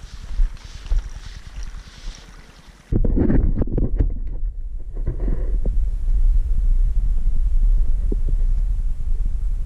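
Wind buffeting an outdoor microphone. It sets in suddenly about three seconds in as a loud, steady low rumble, after a quieter stretch of irregular rustling.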